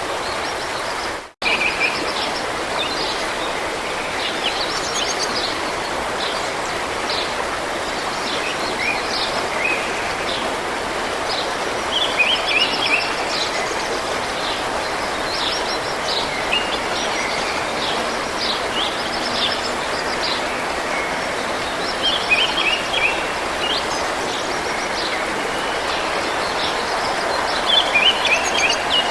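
A running stream's steady rush of water, with small songbirds chirping and trilling over it throughout. The sound cuts out for an instant about a second in.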